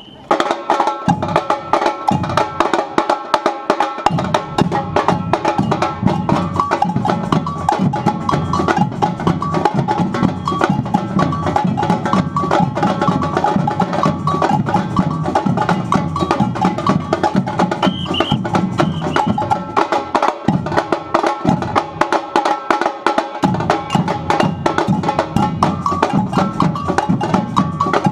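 A samba batucada drum group playing together: surdo bass drums, snare and repinique-type drums and a high, wood-block-like clacking pattern in a dense, steady rhythm. The bass drums come in about a second in and drop out for a few seconds about twenty seconds in, and a short whistle signal sounds a little before that.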